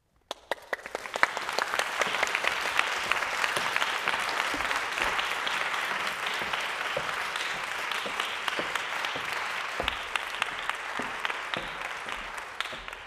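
Audience applauding steadily. The applause builds up over the first second or two and fades away near the end.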